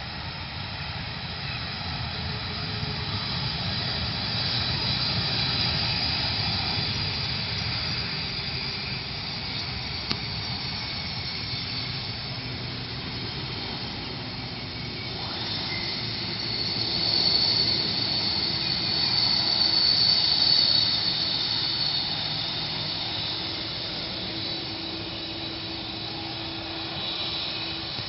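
Boeing 747-400 jet engines running as the airliner taxis past: a steady high whine over a low rumble, swelling to its loudest in the second half and then easing off.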